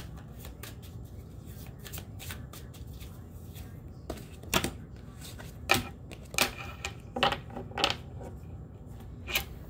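Tarot cards shuffled softly by hand, then from about four seconds in a handful of sharp, uneven card snaps and slaps as cards are pulled from the deck and laid down on the tabletop.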